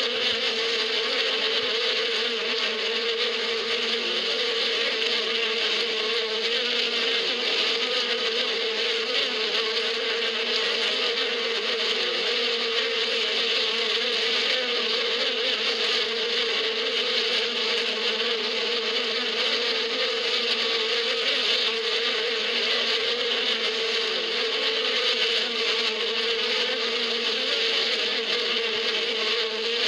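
Many honeybees flying in a dense cloud around their hive, making a steady, unbroken buzzing hum.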